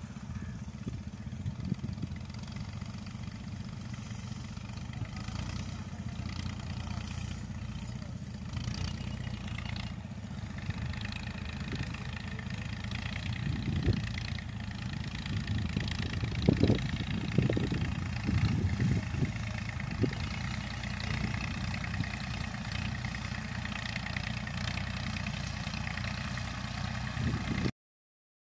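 A tractor's engine running steadily as it pulls a plough across a field, heard from a distance, with louder swells in the middle. The sound cuts off suddenly just before the end.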